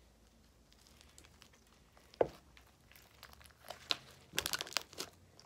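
Homemade slime squeezed and worked in the hands, giving soft crackling, clicking pops that grow denser in the second half; a single knock about two seconds in.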